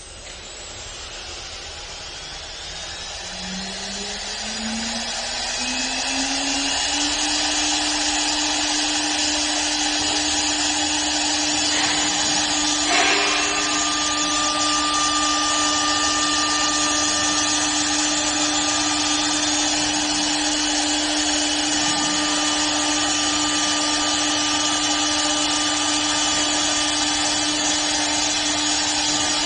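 CNC wood lathe's electric motors spinning up, the hum rising in pitch in small steps over the first several seconds, then running steadily with a high whine and a hiss. A brief louder rasp comes about 13 seconds in.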